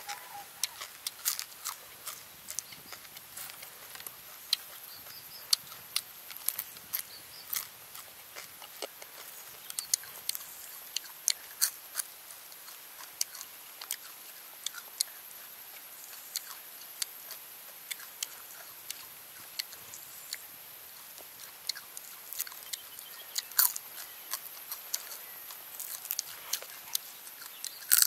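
Close-up chewing of crispy deep-fried grasshoppers: many sharp, irregular crunches as the fried insects are bitten and chewed.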